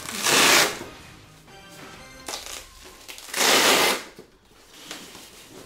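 Styrofoam packing lid rubbing and scraping against the box as it is gripped and worked loose: two loud scraping noises about three seconds apart, with quieter handling noise between.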